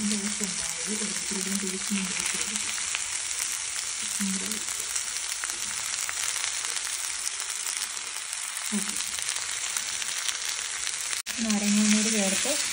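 Chicken pieces and vegetables sizzling in a nonstick frying pan, a steady hiss. Near the end, after a brief dropout, a utensil stirs the pan and the sizzling gets louder.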